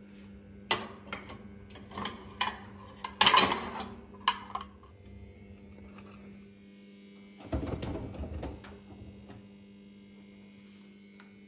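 Dishes and glassware clinking and knocking as a dishwasher is unloaded: several sharp clinks in the first half, then a longer, lower rattle about eight seconds in. A steady low hum lies under it all.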